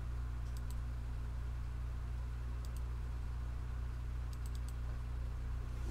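Computer mouse clicks: a pair of clicks near the start, another pair around the middle, and a quick run of four near the end, over a steady low electrical hum.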